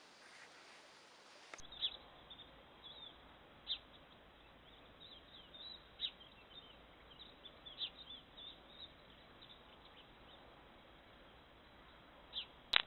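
Birds chirping faintly, short high calls scattered irregularly, over a steady faint hiss from a trail camera's microphone.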